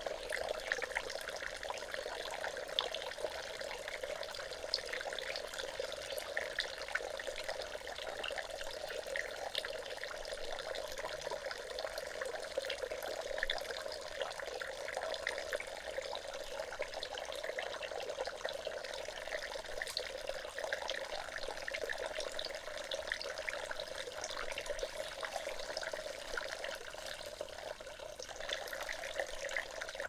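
A small stream of water falling from a spout into a shallow pond, a steady splashing trickle that stops right at the end.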